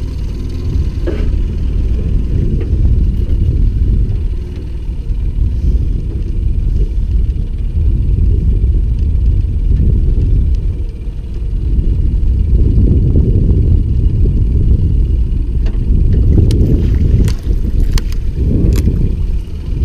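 Uneven low rumble of wind buffeting the microphone on an open boat, swelling and dipping, with a few sharp knocks near the end as a hooked zander is landed in a landing net.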